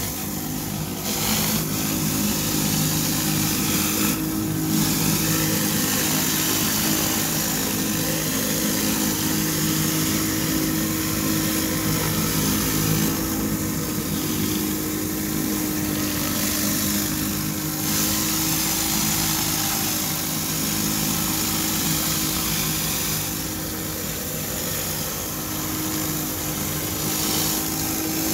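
4,000 PSI hot-water pressure washer running steadily: a constant engine drone under the hiss of high-pressure water spraying from a rotary surface cleaner onto concrete.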